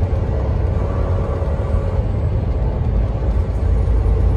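Semi truck cruising at highway speed, its engine and road noise heard from inside the cab as a steady low rumble.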